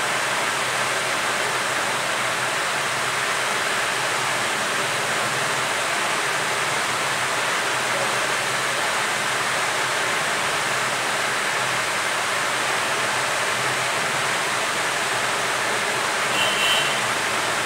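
Hot-air rework gun blowing a steady hiss onto a phone circuit board while it desolders a capacitor beside the battery connector to clear a short circuit. A short high tone sounds near the end.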